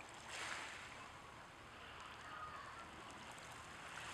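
Small waves washing softly over and around a stone at the edge of a pebble beach. One louder wash swells about half a second in, then a fainter lapping hiss goes on.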